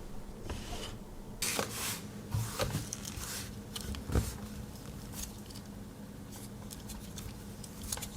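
Close handling noise of small objects: scattered clicks, taps and rubbing, busiest in the first half, with a sharper knock about four seconds in.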